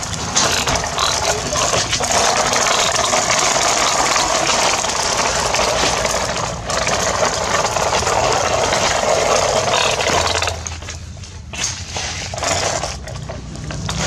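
Plastic toy dump truck rolling over gritty concrete and sand, its wheels and body rattling and scraping, with sand pouring from its tipper bed. The steady rattling noise drops away about ten seconds in, leaving softer, broken scrapes.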